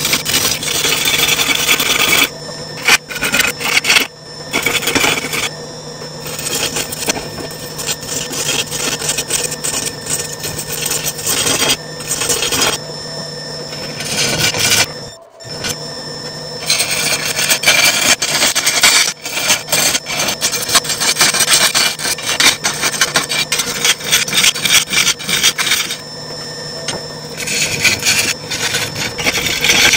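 Wood lathe running while a turning gouge cuts a spinning burl-and-resin urn blank: a continuous rasping, scraping cut over the steady hum of the lathe, with a brief break in the cut about halfway through.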